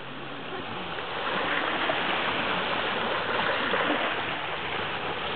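Steady rushing water noise around a small boat, with no clear engine tone.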